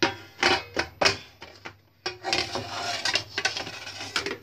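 Steel plate and aluminium cake tin clinking and knocking together as the tin is turned over onto the plate. There are several sharp metal taps in the first second or so, then about two seconds of rattling and scraping metal.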